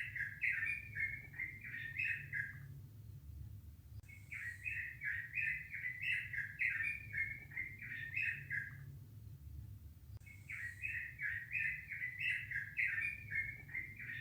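A bird singing the same song phrase over and over: a quick run of chirping notes lasting about four seconds, repeated roughly every six seconds, over a steady low hum.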